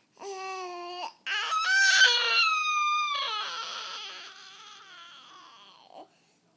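A baby's cry-like vocal noises: a short held note, then after a brief break a longer wail that falls in pitch and slowly fades away.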